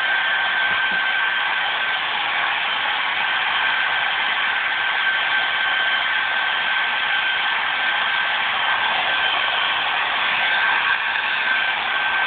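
Handheld hair dryer running steadily: an even rushing hiss of blown air with a steady whine from its motor.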